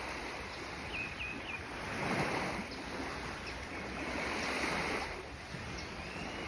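Small sea waves washing in and lapping at the shore, swelling twice, with a few short bird chirps about a second in.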